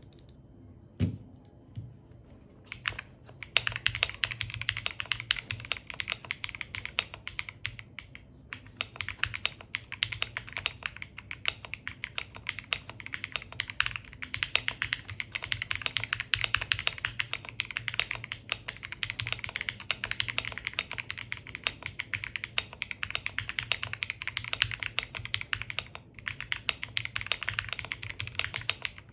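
Typing on a Kiiboom Moonshadow 81 mechanical keyboard fitted with Leobog IceSoul switches and Japanese minimalist keycaps. A few single keystrokes come first, then from about three seconds in a fast, steady clatter of keypresses with a couple of short pauses.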